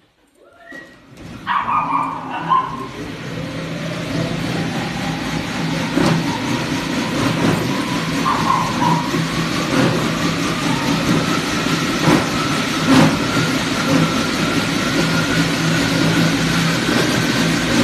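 Curved wooden-slat dog treadmill rattling as a dog runs on it, starting about a second in, with a whine that rises slowly in pitch as the belt speeds up. Two brief squeals sound near the start and about eight seconds in.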